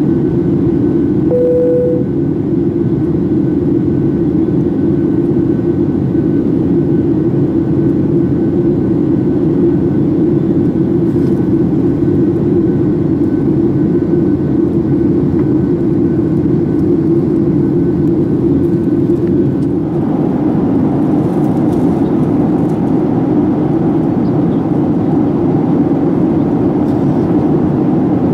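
Steady cabin noise of a Boeing 737-800 in flight: engine and airflow rush heard from inside the cabin. A short single tone sounds about a second and a half in, and the noise turns somewhat brighter about twenty seconds in.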